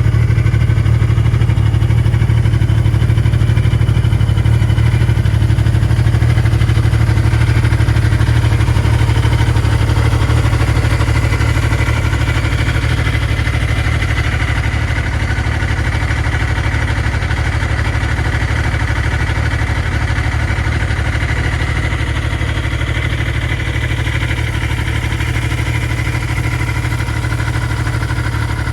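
A steady low motor hum that holds one pitch throughout and grows slightly quieter toward the end.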